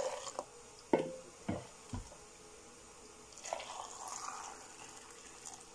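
A few knocks of kitchenware, the sharpest about a second in, then a soft hiss of liquid for a second or so as the boiled brine is poured into the canning jars.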